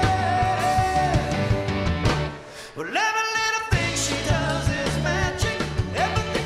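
Live rock band playing: a male singer with electric guitar, keyboard and drums. About two and a half seconds in, the beat drops out for about a second under a held note that slides up, then the full band comes back in.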